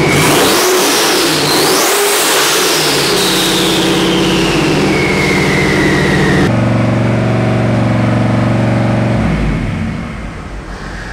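Twin-turbocharged 509 cubic-inch big-block Chevrolet V8 running hard on an engine dyno during a ring-seating break-in run, with turbo whine climbing sharply twice and then falling slowly. About two thirds through, the sound changes abruptly to steadier, lower running, and it grows quieter near the end.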